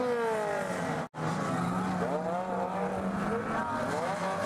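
Unlimited banger race cars' engines revving, the pitch rising and falling, with tyres spinning and scrubbing on the tarmac. The sound cuts out completely for an instant about a second in.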